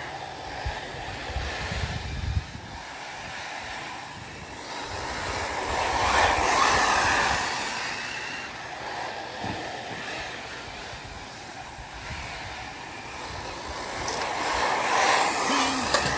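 Arrma Typhon 6S brushless electric RC buggies racing on a dirt track: motor and drivetrain whine mixed with tyre noise. It swells loudest as the cars pass, about six seconds in and again near the end.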